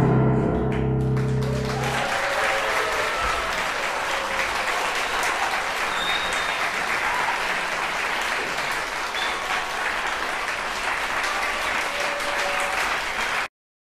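The last chord of piano, cello and double bass rings out, then audience applause takes over about two seconds in and carries on steadily until it cuts off suddenly near the end.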